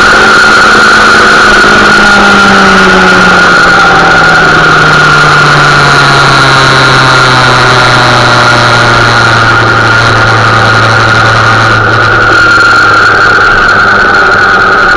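Motorcycle engine heard from on the bike, its pitch falling as the revs drop from about 7,000 to about 3,000 rpm while the bike slows, then running steadily at low revs. A steady high whine sits over it.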